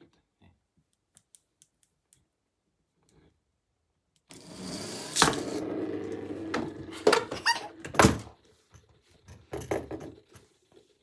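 Two LEGO spinners built from large rubber-tyred wheels, set spinning on a wooden tabletop about four seconds in: a steady whirring rumble with several sharp knocks, the loudest about eight seconds in, then a few lighter knocks as they slow.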